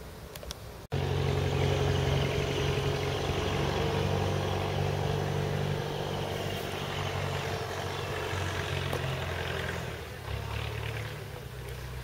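An engine running steadily with a low hum, easing off near the end.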